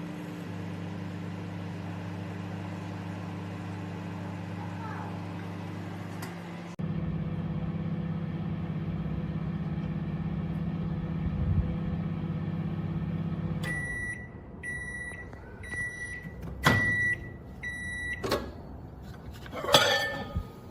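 Sharp R207EK microwave oven running with a steady electrical hum, which steps louder about seven seconds in. The hum stops at about fourteen seconds and the oven beeps five times, about a second apart, with a couple of sharp clicks and a short rattle near the end.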